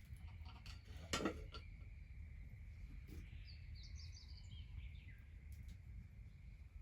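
Birds chirping faintly over a steady low rumble of outdoor background noise, with one sharp knock a little over a second in.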